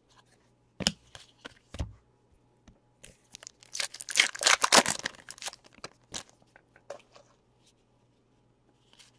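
A trading card pack's wrapper torn open by hand: a crinkling rip that starts about three seconds in and lasts around three seconds, after a few light taps of cards being handled.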